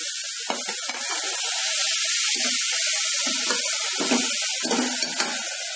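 Ivy gourd and masala frying in oil in an aluminium pressure cooker, giving a steady sizzling hiss as a little water is added and the mix is stirred with a spoon.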